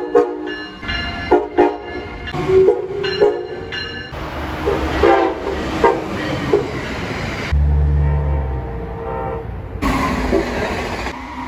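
Amtrak locomotive air horn blowing a run of short blasts, then longer chord-like blasts, over the rumble and clatter of a passing train. The sound changes abruptly a few times, like cuts between separate recordings.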